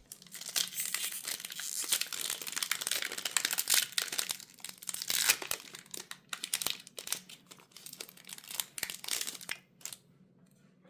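Foil booster-pack wrapper of a Magic: The Gathering Play Booster being torn open and crinkled, a dense crackling that stops about a second before the end.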